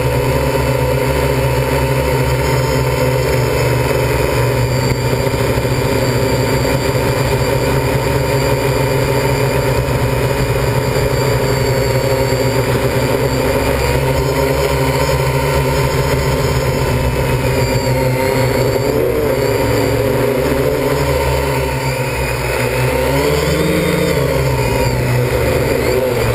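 MikroKopter L4-ME quadcopter's electric motors and propellers running, heard from its onboard camera as a loud steady whir made of several steady tones. It dips in loudness a little past the two-thirds mark, then its pitch rises and falls as the copter manoeuvres.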